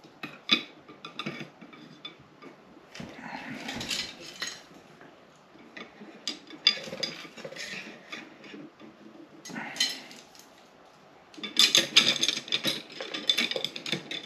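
Clicks, taps and light knocks of a carbon fishing rod and spinning reel being shifted about and set across a small weighing scale on a workbench, with a dense run of clatter near the end.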